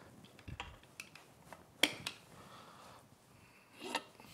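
A few light metallic clicks and clinks from a screwdriver and small metal parts being handled, the sharpest about two seconds in and a duller knock near the end.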